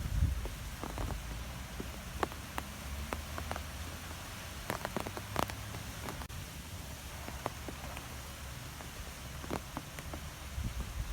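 Wind in trees: a steady low rumble of wind with a faint hiss, and scattered light ticks and patters at irregular intervals.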